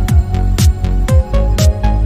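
Electronic dance music with a steady kick drum at about two beats a second, cymbal hits and synth notes.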